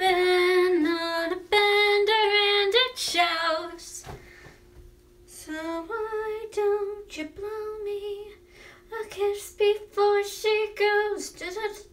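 A young woman singing unaccompanied in held, sliding notes. There is a break of about a second and a half roughly four seconds in, and a faint steady tone runs underneath.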